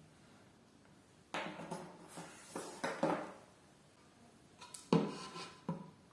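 Small hard objects being handled, clattering and rubbing in two short bursts, the second a little louder at its start.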